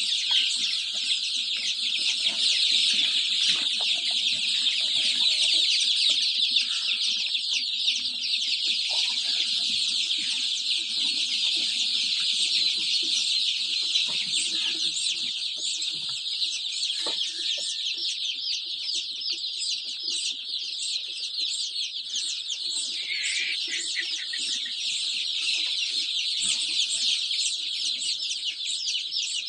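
A large flock of baby chicks peeping continuously, hundreds of high, short calls overlapping into a dense chorus.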